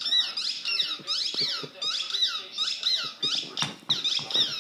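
Golden retriever chewing a squeaky tennis ball, the squeaker squeaking over and over, about three short squeaks a second, each dipping and rising in pitch.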